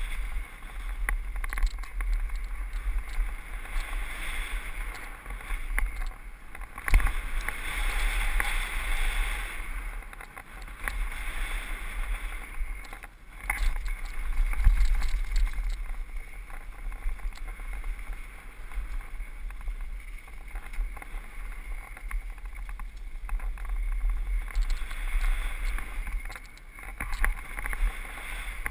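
Wind buffeting an action camera's microphone while a mountain bike's tyres roll over a loose dirt and gravel trail, with knocks from bumps and jumps now and then, the loudest about seven and fifteen seconds in.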